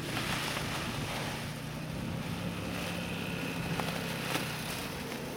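A small engine running steadily, a low even hum, under a steady rushing noise.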